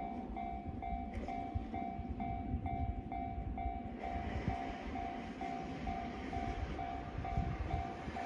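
Japanese level-crossing alarm dinging steadily, about two and a half times a second, over the rumble and hiss of an approaching electric train that grows louder from about halfway through.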